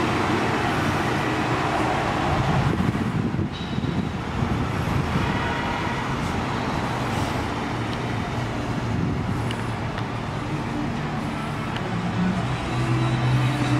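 Steady road traffic noise, with steady low tones coming in near the end.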